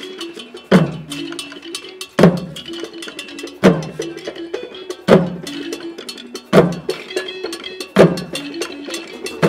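Traditional Nigerian drum ensemble playing. Heavy drum strokes fall about every second and a half over a quick repeating xylophone figure and fast, sharp clicking strokes.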